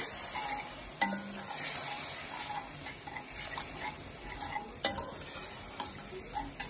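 Onion, ginger-garlic and spice masala sizzling in oil in a metal pot as a wooden spatula stirs and scrapes through it. Two sharp knocks of the spatula on the pot, about a second in and just before five seconds.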